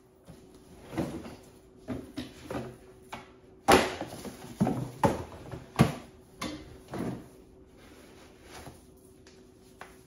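A string of knocks, thumps and rustles from a pair of sneakers being handled and pulled on while sitting in a chair, the loudest thump about four seconds in, over a faint steady hum.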